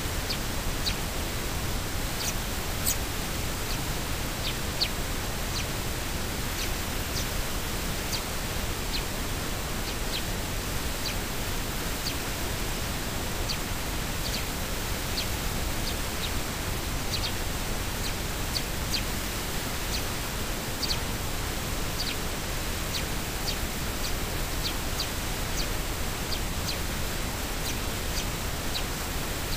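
Sparrows chirping: short, high chirps about a second apart over a steady hiss, the calls of fledglings being fed.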